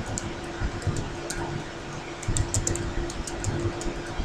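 Computer keyboard typing: quick, irregular keystroke clicks, with a fast run of them about two and a half seconds in, over a steady low hum.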